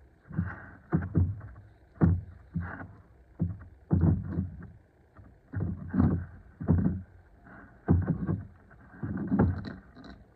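Cat tussling with a giant catnip ball: irregular bursts of scuffing and rubbing, one every half second to a second.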